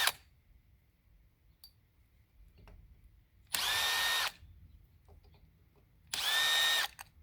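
Cordless drill-driver spinning in short bursts of under a second with a steady whine, backing out the T15 Torx screws that hold the magneto cover on a bicycle motor kit engine. One burst stops just after the start, and two more come about three and a half and six seconds in.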